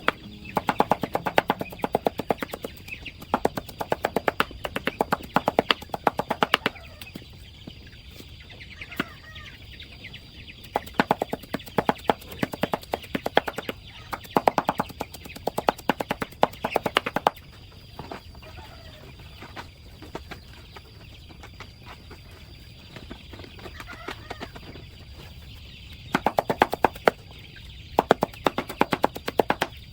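Chickens pecking rapidly at food, dense runs of sharp taps that come in spells and pause, with some clucking.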